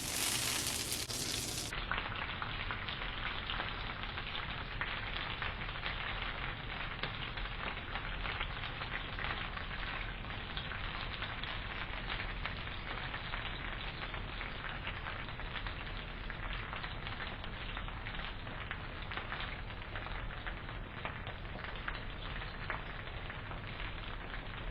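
Pancake batter frying in a hot pan, a steady sizzle with fine, dense crackles throughout.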